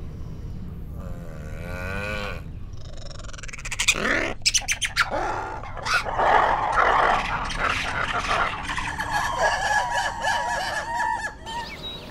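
Ring-tailed lemurs calling: from about four seconds in, a chatter of overlapping chirping calls mixed with sharp clicks. Before that comes a low rumble with a short wavering call.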